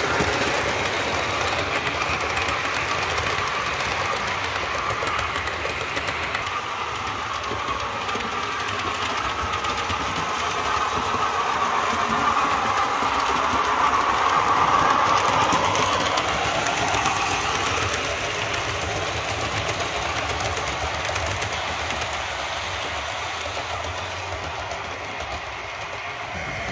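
Model trains running on a model railway layout: a steady whir of small electric motors and wheels rattling over the track, with a whine that rises and falls about halfway through and eases off slightly toward the end.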